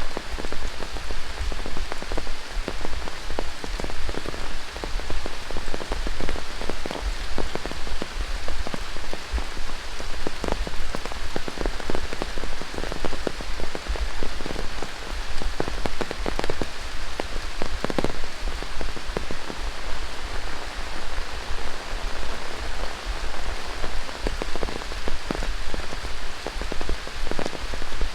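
Steady rain falling through tropical rainforest, an even hiss dotted with many close, separate drop impacts, over a steady low rumble.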